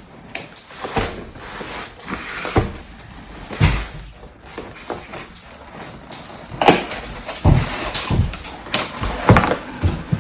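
A gift package being opened by hand: irregular rustling, scraping and sharp knocks of packaging being handled and pulled open.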